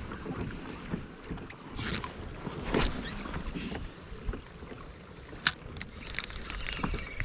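Small-boat sounds on a fishing kayak: irregular water and hull noise with scattered light knocks and clicks, and one sharp click about five and a half seconds in.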